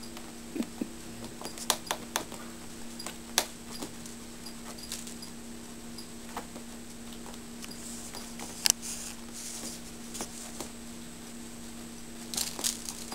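Kittens playing: scattered light taps and clicks of paws and a string toy on a wooden floor, with a short run of scratching near the end as a kitten claws at an armchair's fabric cover. A steady low hum runs underneath.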